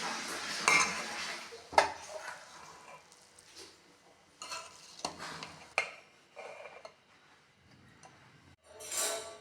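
Metal spoon stirring and scraping in a cooking pot, with a few sharp clinks of metal on metal among quieter scraping.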